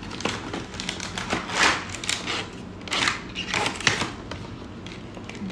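Paperboard headphone box being opened by hand and its inner tray slid out: an irregular run of rustles, scrapes and clicks of cardboard handling.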